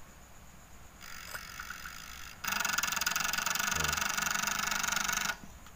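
TV flyback transformer giving a very loud creaking, snoring buzz on power-up, the technician's suspected sign of a short circuit in the set. A fainter buzz starts about a second in, then a loud rapid chattering squeal runs about three seconds and cuts off suddenly.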